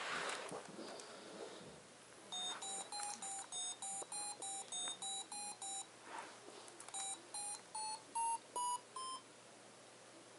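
LEGO Mindstorms NXT brick's speaker playing a fast run of short electronic beeps, about four a second, then after a pause a shorter run whose last beeps step up in pitch. A light rustle of the robot being handled comes at the start.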